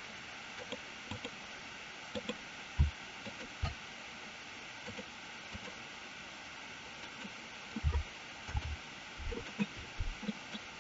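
Steady hiss of an open narration microphone, with scattered soft low thumps and faint clicks, more of them in the second half.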